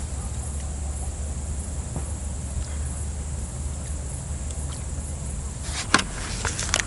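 Steady high chirring of insects over a low rumble, with a few sharp clicks coming in about six seconds in.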